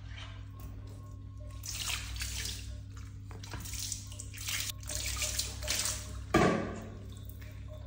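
Water splashing and running over a wet Persian cat's coat during a hand rinse with a shower hose, in several bursts, with one short loud splash about six seconds in.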